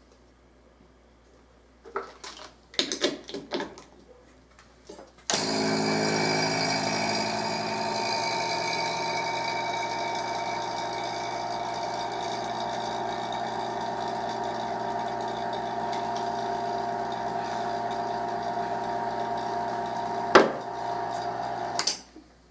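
Electric vacuum pump switched on about five seconds in. It runs with a steady hum and whine as it draws a vacuum through a hose on a plastic cup sealed by a rubber gasket onto a metal plate. It is a little louder for its first couple of seconds, and it cuts off near the end, just after a sharp click. Before it starts there are a few knocks and clicks as the cup and its hose fitting are set in place.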